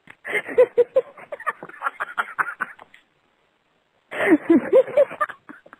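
A person laughing over a telephone line in two bouts of quick, repeated chuckles, the second starting about four seconds in.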